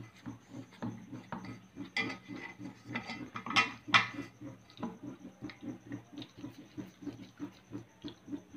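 A few clattering knocks of a stainless steel bowl as hands work soft chapati dough in it, loudest about two seconds in and again around three and a half to four seconds in, over a faint low pulsing about four times a second.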